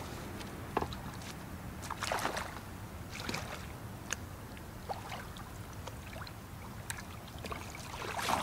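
Water splashing in a few short bursts as a blue catfish is landed by hand in the shallows; the biggest splashes come about two seconds in and near the end, over a low steady rumble.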